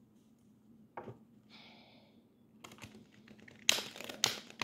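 Tarot deck being shuffled by hand: a couple of soft taps and a brief rustle, then from about three seconds in a fast run of card flicks that turns loud near the end.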